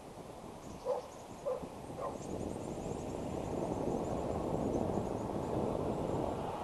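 Low engine noise from a distant vehicle or aircraft, building up after about two seconds and then holding steady. Early on, three short low animal calls about half a second apart cut through it, and faint high chirps come and go.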